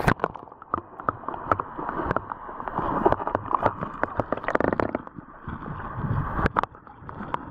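Muffled underwater sound through a submerged camera microphone: gurgling water with a scatter of small clicks and ticks, all the higher sounds cut off.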